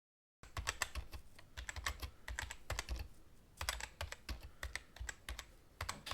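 Typing on a keyboard: an uneven run of quick key clicks starting about half a second in, with short pauses between bursts.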